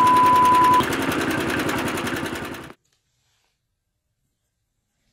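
A fast, rhythmic buzzing rattle, with a steady high censor beep about a second long at the start. The rattle cuts off abruptly a little under three seconds in, leaving dead silence.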